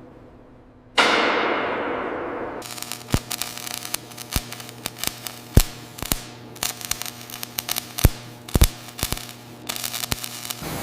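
A metal clang about a second in, ringing and dying away. Then a run of irregular sharp cracks and pops over a steady low hum, like heavy metalwork in a shipyard.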